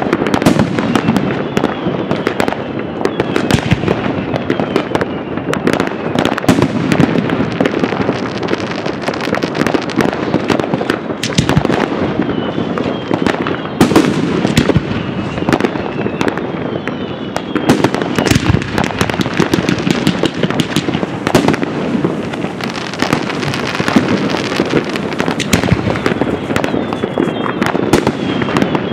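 Large professional fireworks display: aerial shells and effects bursting in a dense, continuous barrage of overlapping bangs, loud throughout.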